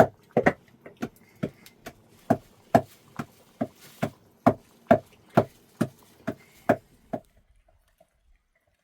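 Repeated sharp chopping strikes, about two a second, that stop about seven seconds in.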